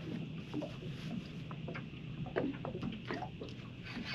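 Short squeaky animal calls, many in quick succession, over a steady low hum.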